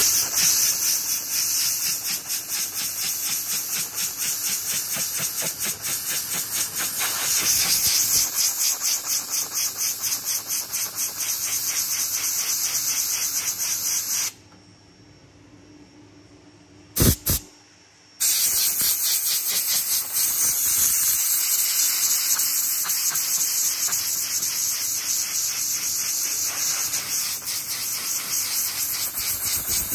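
Compressed air at about 135 psi hissing loudly from a hand-held air blow gun, blasting against a fabric car headliner, with a fast flutter in the hiss. About halfway through it stops for a few seconds, with one short knock in the gap, then starts again.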